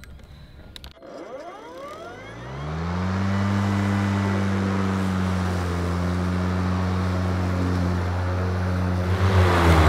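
Battery electric lawn mower's blade motor (EGO 56V Select Cut) starting about a second in and spinning up with a rising whine. It then runs at a steady hum and grows louder and noisier near the end.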